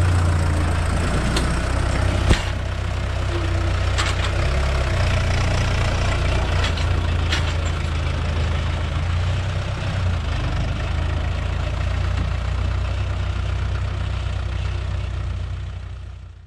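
Tractor's diesel engine running steadily at low revs while its front loader handles a wrapped round bale, with a sharp knock about two seconds in and a few lighter clicks. The sound fades out at the end.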